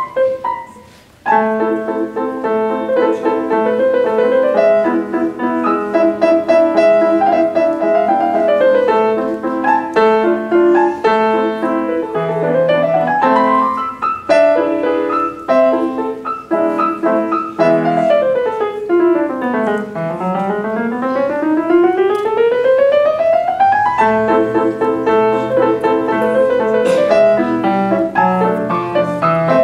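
Solo grand piano playing continuously: chords under a melody, with a brief break about a second in. In the second half a fast run sweeps down the keyboard and then climbs back up high.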